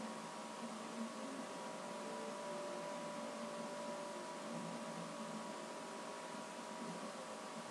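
Faint steady hiss with a low hum and a couple of thin steady tones: the background noise of the recording setup, with no speech.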